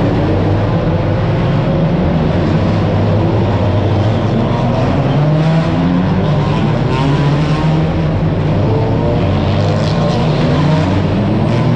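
Touring race cars' engines as a line of cars takes a tight street-circuit corner one after another, several engines overlapping, their notes rising again and again as each car accelerates out.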